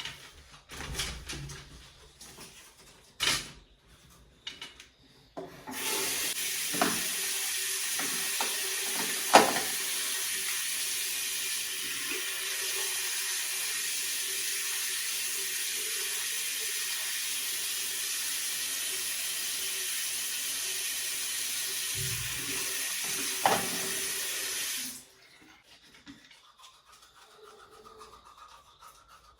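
Water running steadily for about twenty seconds, turned on and off abruptly, with a few knocks and clatters of things being handled around it.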